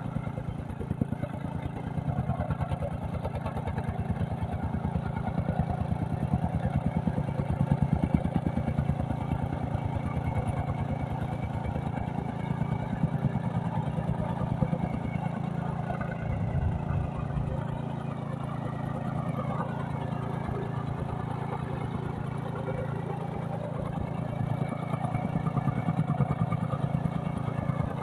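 Gasoline tamping rammer running, its small engine and the jumping foot pounding loose soil in a fast, steady rhythm.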